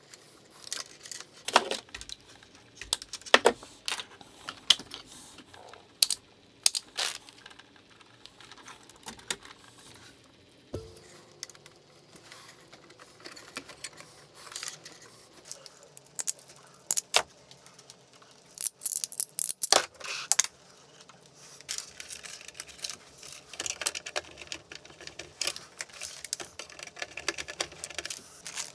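Scattered small clicks and light rattles of wires and crimp terminals being handled and fitted into screw terminals while wiring power to stepper motor drivers, with a denser run of clicks about two-thirds through.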